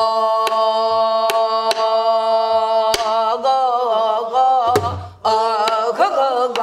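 A woman's voice sings the lead call of a Korean Namdo folk song, holding one long steady note, then wavering and bending it in ornamented pitch. A buk barrel drum is struck at uneven intervals behind the voice, with a deeper stroke about five seconds in.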